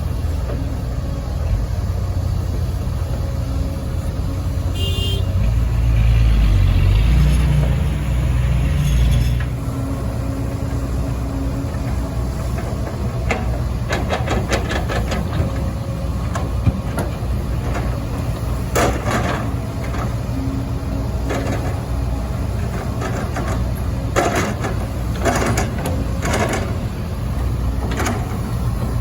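Kobelco SK140 hydraulic excavator's diesel engine running steadily, working harder for a few seconds about a quarter of the way in. Scattered clanks and scrapes come later, typical of the bucket digging soil and dumping it into a truck bed.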